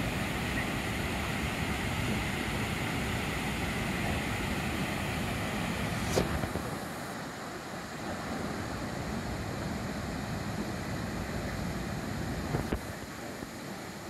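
Steady rushing of a large multi-tiered waterfall. A short click comes about six seconds in, and after it the rush is a little quieter and duller.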